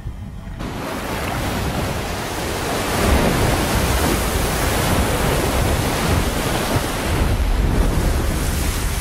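A U-boat surfacing: a loud rushing hiss of its ballast tanks being blown. It starts abruptly about half a second in and grows louder about three seconds in.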